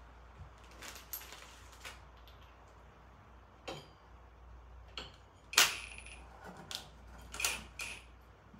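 Scattered metal clicks, clinks and knocks of bolts and hand tools being handled while fitting motor mount bolts into a lawn tractor frame, with one sharp clank about five and a half seconds in.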